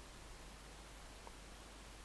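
Near silence: a faint steady hiss, with one faint mouse click a little over a second in.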